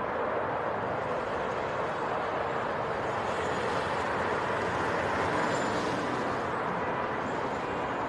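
Steady outdoor background rush of noise, unchanging in level, with a few faint high chirps.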